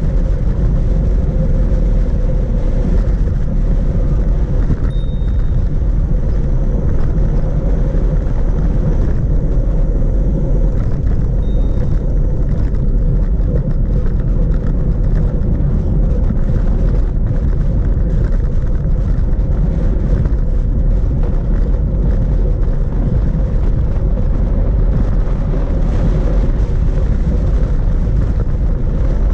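Steady wind buffeting the microphone of a camera on a bicycle coasting downhill, with tyre noise from the road. It is a constant low rumble that does not change.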